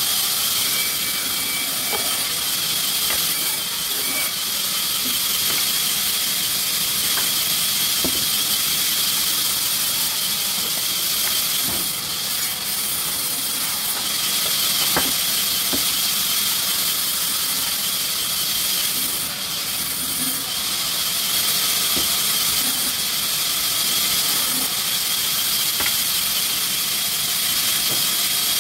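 Sawmill machinery running with a steady high hiss, and scattered light clicks and knocks.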